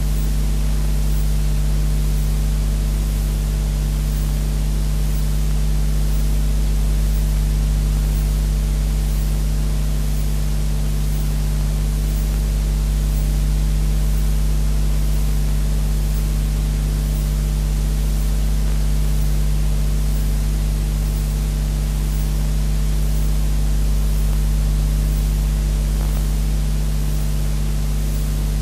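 Steady electrical hum with a low buzz and its overtones under an even hiss, unchanging throughout: an audio track carrying no programme sound, only the noise of the recording chain.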